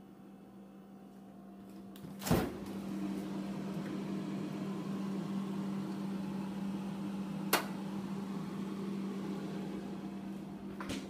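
Steady electrical hum of a kitchen appliance, starting just after a sharp click about two seconds in. Another sharp click comes near the middle and one near the end.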